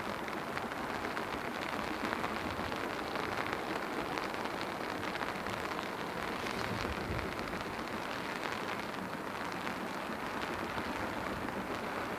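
Steady rain falling, an even hiss dotted with many small raindrop ticks.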